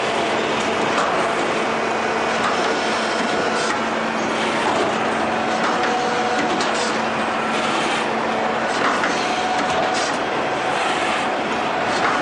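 LPPP1300 roll-forming line running, with steel sheet feeding through its forming rolls into corrugated wall panel. A steady mechanical rumble and clatter at an even level, with a constant hum and scattered metallic clicks.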